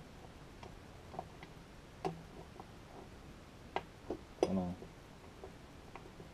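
Sparse light clicks and taps as a hex bolt with a built-in washer is started by hand into the mount of an ice auger's plastic fuel tank. About four and a half seconds in there is a brief murmur of voice.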